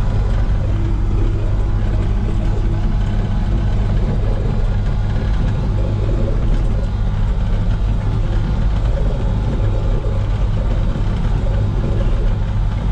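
Komatsu PC16 mini excavator's diesel engine running steadily under load, heard from inside the cab, as the machine travels on its tracks in high-speed travel.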